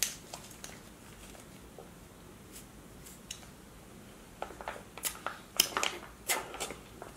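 Sucking slush from a plastic ICEE squeeze pouch: mouth slurps and clicks with the pouch crinkling. It is faint at first, then a run of short, sharp slurps and clicks begins about halfway through.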